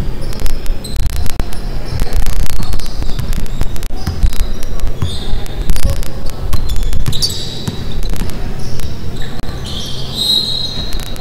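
A basketball bouncing on a hardwood court floor, with sneakers squeaking, the longest squeak about ten seconds in.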